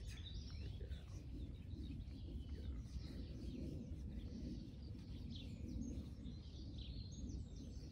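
Small birds chirping and singing, many short quick notes throughout, over a steady low outdoor rumble.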